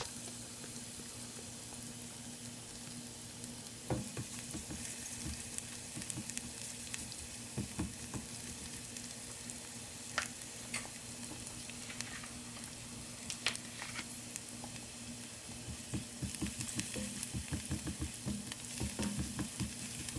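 Ginger, onions and garlic sizzling steadily in hot oil in a nonstick wok. A silicone spatula scrapes and taps against the pan now and then, and stirs busily in the last few seconds.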